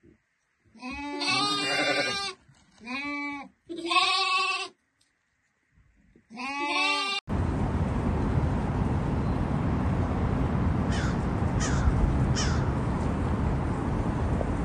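Goats bleating, four quavering bleats over the first seven seconds. The sound then cuts suddenly to a steady rush of wind on the microphone, with three faint bird calls, like crows cawing, a little before the end.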